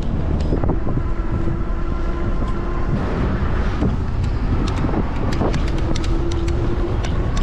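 Wind noise on the microphone during an e-bike ride, with a steady whine that comes and goes and scattered clicks and rattles.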